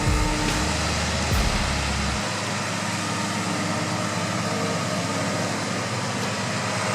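Heavy machinery running steadily: engine noise under a broad, even hiss, with low rumbles in the first two seconds.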